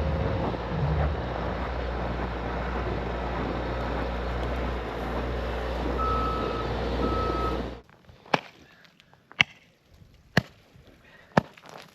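A vehicle engine running steadily with a low hum, and two short beeps near the end. It then cuts off abruptly, leaving a few sharp clicks spaced about a second apart.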